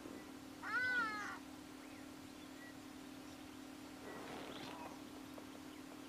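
A single short mewing animal call about a second in, rising then falling in pitch, over a faint steady hum.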